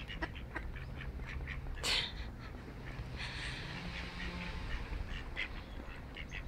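Mallard ducks quacking on the pond, short rough calls scattered through, the loudest about two seconds in and a run of calls a second later.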